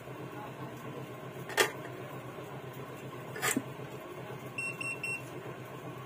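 Three short electronic beeps in quick succession near the end, over a steady low hum from the repair bench equipment. Two sharp clicks come before them, the first about a second and a half in and the louder one, the second about two seconds later.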